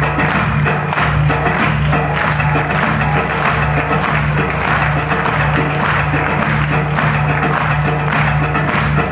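Loud music with a steady beat and a sustained bass line.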